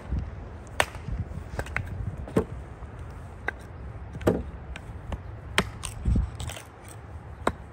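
Hatchet splitting wood on a log stump: a series of sharp, irregularly spaced chops, about one every second, with a duller thump about six seconds in.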